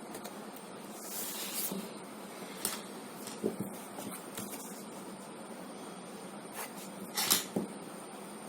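Pencil being drawn across drawing paper: a few short scratchy strokes and small clicks over a steady background hiss, with the loudest stroke near the end.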